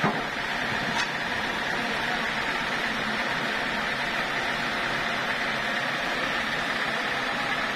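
Band sawmill machinery running steadily at idle, not cutting, as the log is positioned on the carriage. A sharp knock sounds at the start and a fainter click about a second in.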